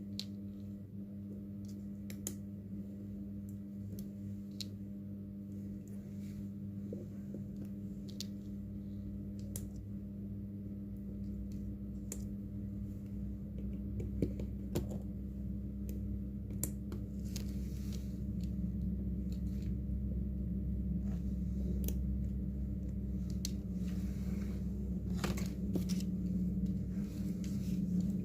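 Scattered light clicks and taps of small parts and tools being handled over a steady low electrical hum, which grows louder about halfway through.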